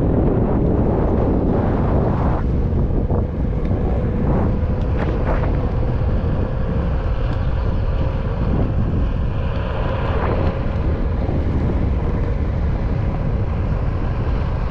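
Wind buffeting a pole-mounted camera's microphone while a skateboard rolls fast down an asphalt road, with a steady hum setting in a couple of seconds in and a few short clicks.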